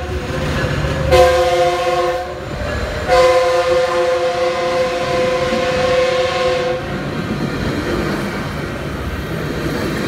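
Metrolink F125 locomotive's horn sounding a short blast about a second in, then a long steady blast from about three seconds in to nearly seven. Under it runs the rumble and clickety-clack of bilevel passenger cars rolling past close by; after the horn stops, only the wheel clatter remains.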